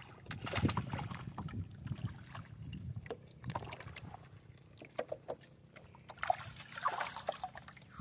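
Water sloshing and splashing in uneven bursts as a person wades chest-deep in a pond, pulling a fishing net through the water.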